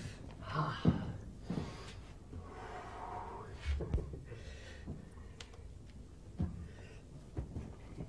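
A man's loud breathy gasps and puffs as he stretches, the longest drawn out over about a second, with a few soft knocks from his movements.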